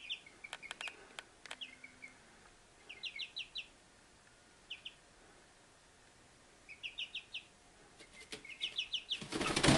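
Young chicks, about three weeks old, peeping in short runs of quick high chirps, with a few light clicks in the first second and a half. Near the end comes a loud burst of wing flapping as a chick flaps up toward the rim of its box.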